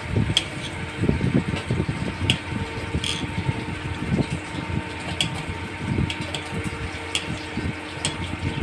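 Kitchen knife slicing pointed gourd directly on a stone countertop, the blade striking the counter in sharp irregular clicks, about one a second, over a steady low rumble.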